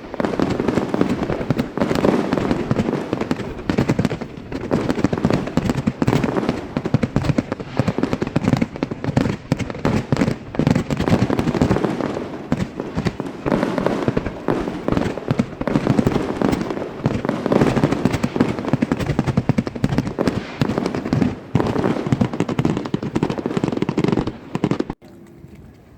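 Fireworks bursting in a dense, continuous barrage of overlapping bangs and crackles, stopping abruptly near the end.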